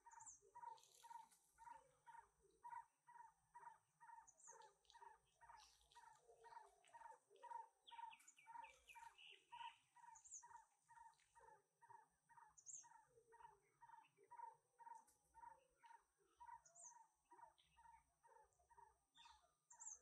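Faint birdsong: a bird repeating one short note about two and a half times a second, with occasional brief high chirps and a steady high whine behind.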